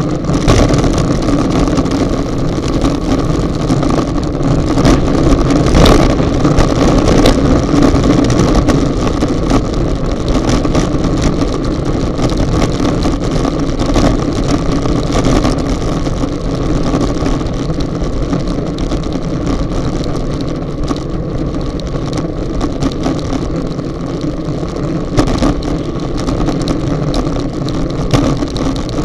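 Wind rushing over a bike-mounted action camera's microphone while riding a road bike at about 40 km/h, with road rumble from the tyres and frequent short knocks and rattles from the loosely mounted camera.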